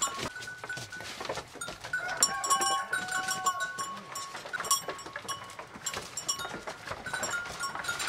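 A herd of goats feeding on fresh leaves in a slatted pen: leaves rustle and crackle among many small clicks and knocks, with goats bleating now and then.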